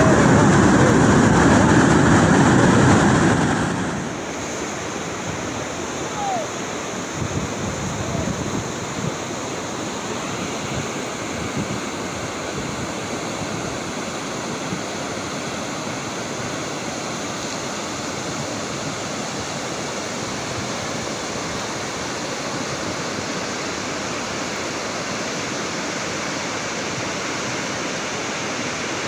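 Lahar flood, a volcanic mudflow of water, mud and rock, rushing down a river channel as a steady noisy rush. It is louder and deeper for the first few seconds, then drops about four seconds in to a lighter, even rush.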